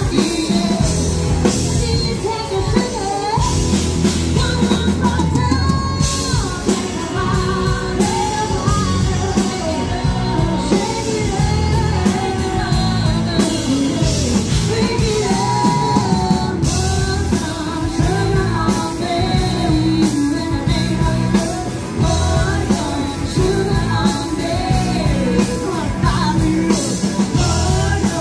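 A live rock-and-roll band playing through a PA: a sung lead vocal over electric guitar, bass and a steady drum-kit beat.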